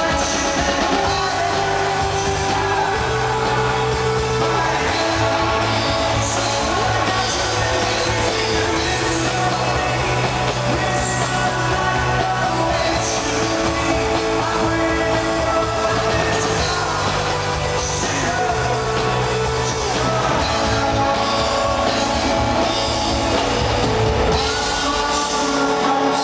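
Live rock band performing: a lead singer over a drum kit and full band, loud and steady.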